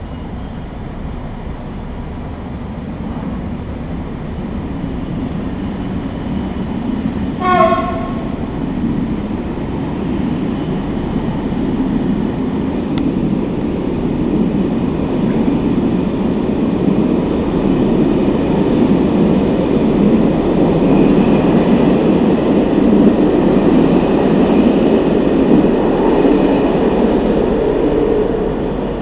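Corail Intercités passenger coaches rolling past on the rails, a steady rumble of wheels on track that grows louder towards the end. One short horn blast sounds about seven seconds in.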